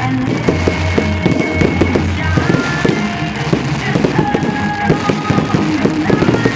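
Fireworks going off in a dense run of rapid crackles and bangs, with music playing alongside.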